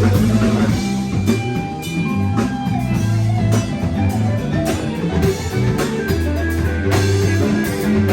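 Live band playing rock music with guitar, a drum kit and long bass notes.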